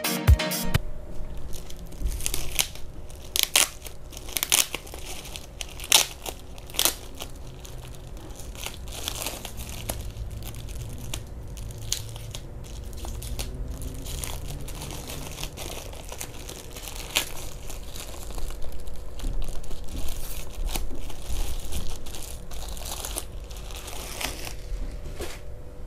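Clear plastic bag crinkling and crackling as it is handled and peeled off a Behringer UMC202HD USB audio interface, with the cardboard box and insert rustling. Irregular sharp crackles, loudest in the first several seconds.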